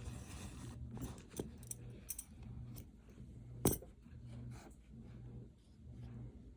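Light clicks and clinks of small objects being handled, with one sharper knock a little past halfway, over a low hum that comes and goes about once a second.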